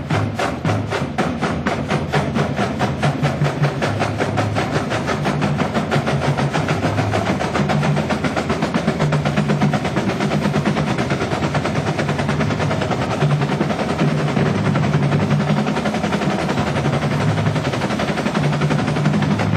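Military marching band playing a march: a fast, even snare-drum beat over low held brass notes that step through a melody.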